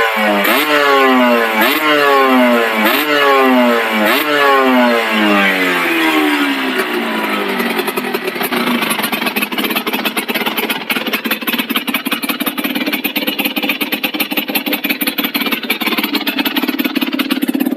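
Aprilia RS 125 two-stroke single-cylinder engine, with its exhaust valve removed and an Arrow expansion-chamber exhaust, revved in short sharp blips about once a second. After about six seconds it drops back and settles into a steady, crackly idle.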